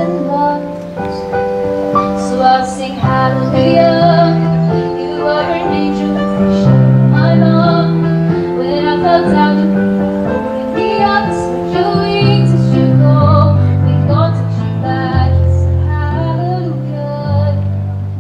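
A song with a woman singing over instrumental backing and a bass line that changes note about once a second.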